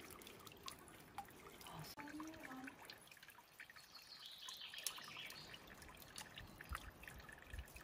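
Faint trickling and scattered drips of spring water running down a mossy rock face and falling into cupped hands.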